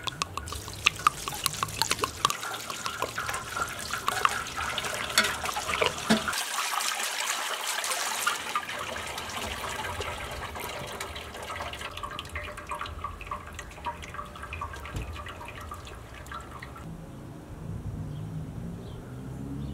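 Water dripping and trickling from freshly boiled spaghetti draining in a metal pan over a pot, with sharp clicks of a metal slotted spoon against the pan in the first few seconds. It fades to a quieter background near the end.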